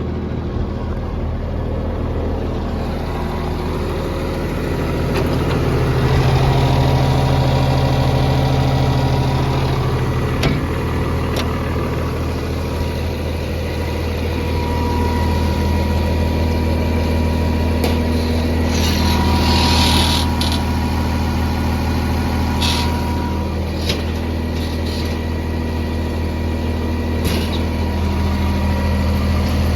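Case 2050M crawler dozer's diesel engine running steadily. Its pitch and loudness step up and back down twice as the load changes, with a few sharp clanks over the top.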